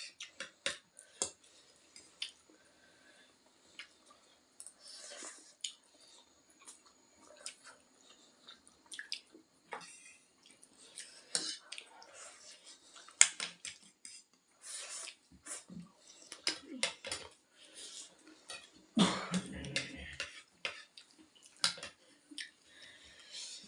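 Ramen being eaten: scattered clicks of utensils against a bowl, with short wet slurping and chewing noises. The loudest burst comes about nineteen seconds in.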